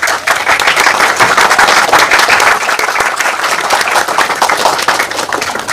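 Audience applauding: many people clapping together in a dense, steady patter that eases off toward the end.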